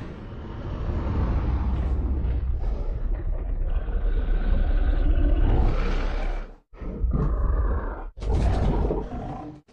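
King Ghidorah (2019) monster roar sound effects: a long, deep rumbling growl with a higher pitched roar over it, then two shorter roars, each cut off abruptly.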